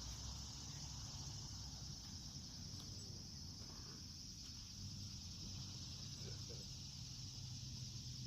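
Steady, even chorus of insects, high-pitched and unbroken, with a faint low hum underneath that grows a little stronger about halfway through.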